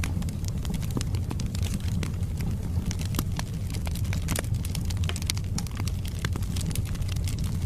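Wood fire burning in a fireplace: a steady low rumble of the flames with frequent, irregular sharp crackles and pops from the burning logs.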